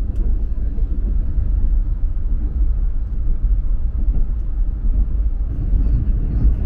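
Passenger train's steady low rumble.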